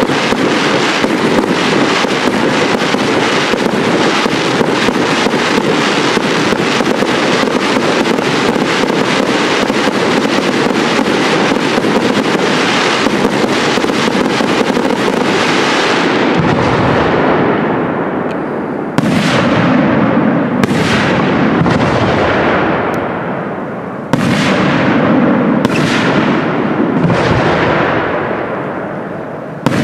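Fireworks display. For about sixteen seconds there is dense, continuous crackling from ground fountains and crackling effects. Then comes a run of separate aerial shell bursts, roughly one a second, each followed by a fading echo.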